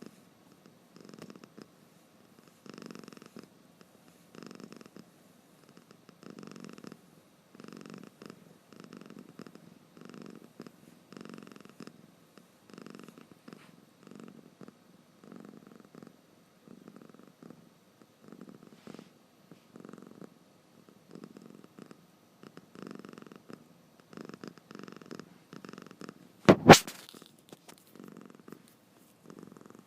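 Domestic cat snoring: short raspy breath sounds repeating about once a second. A single sharp knock near the end.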